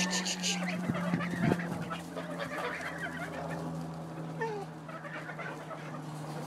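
A flock of Toulouse geese walking and calling, low gabbling with a few short honks. There is crackly rustling at the start and a steady low hum underneath.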